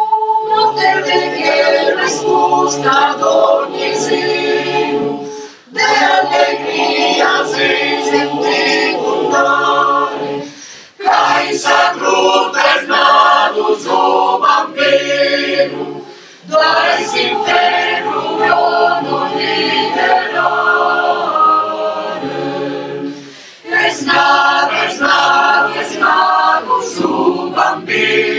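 Mixed adult choir of women's and men's voices singing a Christmas carol. It sings in five phrases, with short breaks between them.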